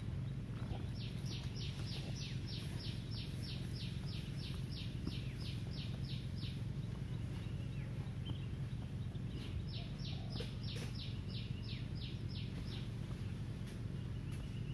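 A bird calling in two runs of short, sharp notes repeated evenly about three times a second, the second run starting about ten seconds in. A steady low rumble underlies it.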